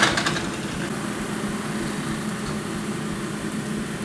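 Sliced zucchini and yellow squash sizzling in a nonstick frying pan as a steady hiss, over the steady hum of the stove's vent fan. A utensil clatters briefly against the pan at the start.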